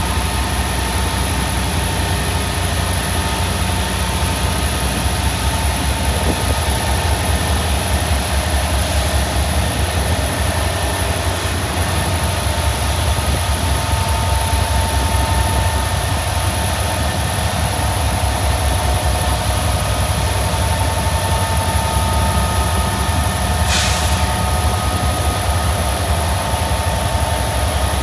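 A CSX freight train rolling by: a steady, loud low rumble with several steady high tones over it, and a brief hiss near the end.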